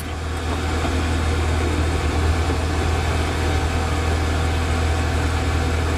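Small diesel locomotive engine running steadily, a constant low hum with a noisy rush over it.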